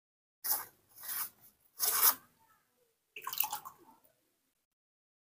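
Four short rustling scrapes of a latex glove and damp cloth rubbing over a newborn monkey's skin during wiping; the third, about two seconds in, is the loudest.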